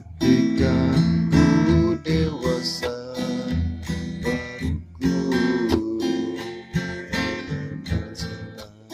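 Background music: a song with strummed acoustic guitar.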